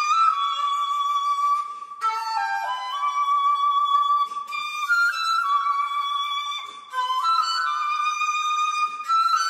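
Shakuhachi playing long held notes with slight bends and stepwise slides in pitch, in phrases broken by short pauses every two seconds or so.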